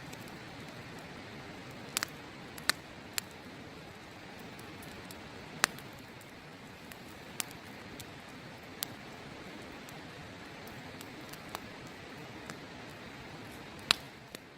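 Wood campfire crackling, with sharp pops every second or two, over the steady rushing of a river.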